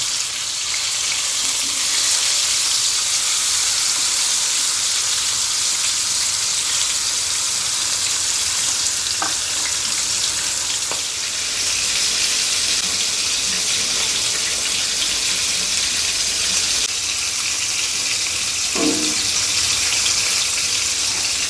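Two marinated whole pomfret shallow-frying in hot mustard oil, giving a steady, even sizzle. The fish have just been turned and are frying on their second side.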